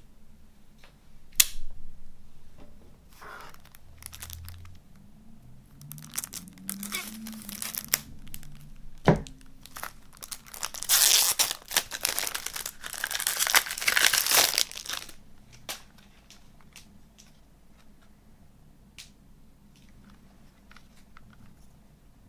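Plastic wrapping on a CD case being torn and crinkled off, densest and loudest from about 11 to 15 seconds in. There are scattered clicks of handling and a sharp knock about 9 seconds in.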